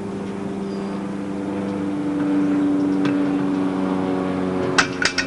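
A motor vehicle engine running with a steady drone, its pitch shifting slightly about two seconds in. Three sharp clicks near the end.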